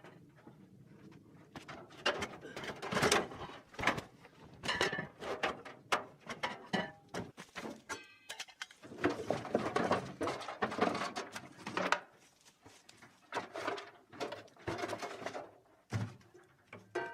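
Irregular knocks, clanks and scrapes of a wood stove's chimney pipe sections being handled and pulled apart, with a small room's echo.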